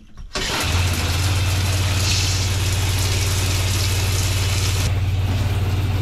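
Handheld RV shower head turned on: water hisses out in a spray, and a moment later the RV's fresh-water pump kicks in with a steady hum and keeps running as it flushes sanitizing bleach solution through the line. The hiss of the spray softens a little near the end.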